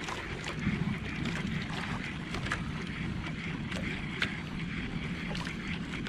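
Wind buffeting the microphone over water lapping against a small outrigger boat, a steady low rumble scattered with light sharp clicks and knocks.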